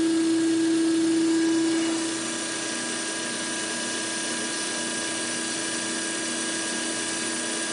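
Pump and motor of a Hy-Pro FCLCOD diesel fuel coalescing filter cart running steadily. A loud steady hum stops about two seconds in, as the solenoid drain valve shuts and the water drain ends, leaving the quieter running of the pump.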